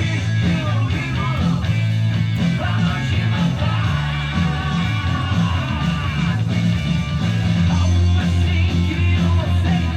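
Rock song playing, with guitar, bass and singing.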